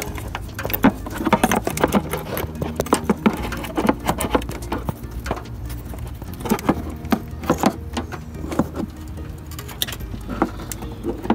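Irregular light metallic clicks and knocks of an adjustable wrench and hand working loose a transmission cooler line fitting at the radiator of a 2008 Chevy Impala, over a steady low hum.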